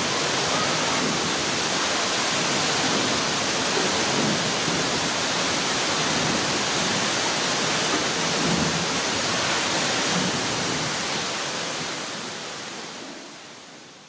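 Manai Falls, a waterfall dropping into a narrow river gorge: a steady rushing of falling water that fades out over the last few seconds.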